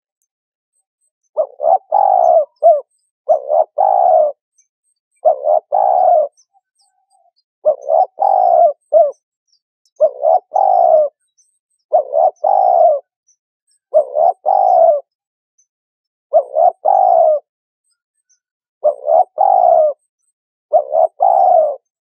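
Dove cooing: a short phrase of three or four low coos, repeated about every two seconds, around ten times.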